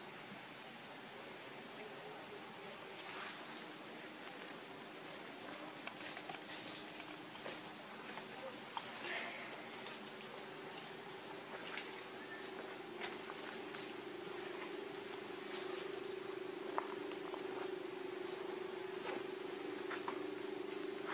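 Steady outdoor insect chorus, a shrill, finely pulsing buzz, under a low steady drone that grows louder through the second half, with scattered light clicks.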